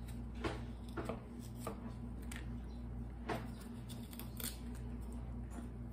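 Plain kitchen knife, not very sharp, scraping and cutting the peel off a bumpy yellow squash in short strokes, about one a second, over a steady low hum.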